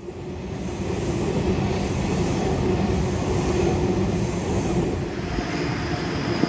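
Sydney Trains Waratah Series 2 electric train running past close below, a steady rumble of wheels and running gear with a faint low hum, building up over the first second.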